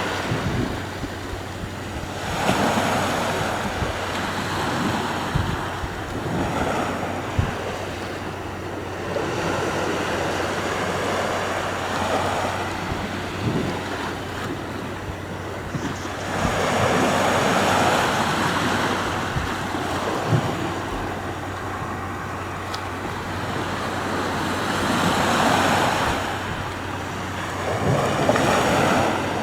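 Sea waves washing onto a shore, the surf rising and falling as each wave surges in, with wind buffeting the microphone now and then.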